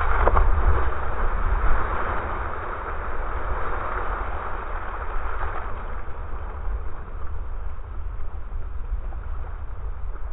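Harbour water splashing and churning where a person has plunged in and is coming back up in an inflatable lifejacket, with wind rumbling on the microphone. Loudest in the first couple of seconds, then slowly easing.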